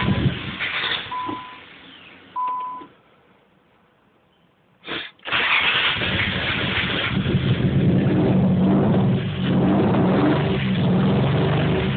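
Car engine with a random misfire (P0300 code, plugs fouled black and smelling of fuel) running briefly with a dashboard chime beeping, then dying out; after a pause of a couple of seconds it is cranked with the throttle pressed, catches and keeps running unevenly.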